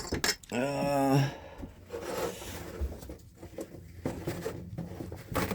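Rubbing, rustling and light clicking as parts and tools are handled, with a short voiced sound about half a second in.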